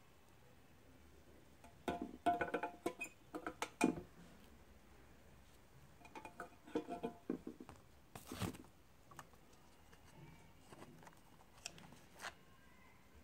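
Clicks, knocks and clinks of 18650 lithium-ion cells being handled: cells taken from a cardboard tray and set into the probe fixture of a battery tester. Two clusters of rapid clicks, then a few single knocks, the last with a short metallic ring.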